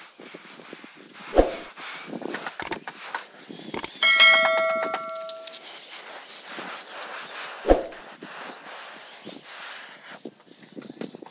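A piece of metal is struck and rings once like a bell for about a second and a half, a few seconds in. Two sharp knocks come before and after it, over a steady hiss.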